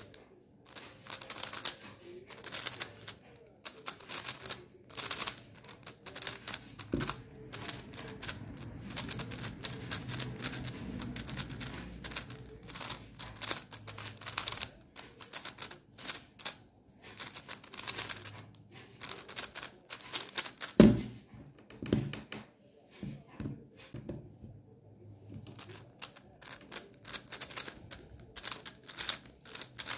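Megaminx being turned fast in a speedsolve: dense runs of rapid plastic clicking as the layers snap round. About two-thirds of the way through there is one loud thump, followed by a few seconds of sparser handling before the rapid clicking starts again.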